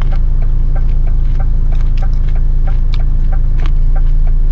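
Large truck's diesel engine idling steadily, with a light, even ticking about four times a second.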